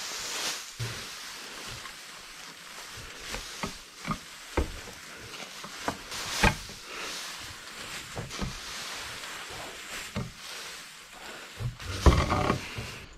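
Heifers and calves moving about, with scattered knocks and thumps over a steady hiss; the loudest thump comes near the end.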